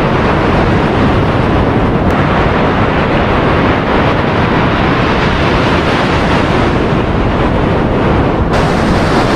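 Strong wind buffeting the microphone over the steady wash of surf on the beach, a continuous loud rushing noise with no breaks.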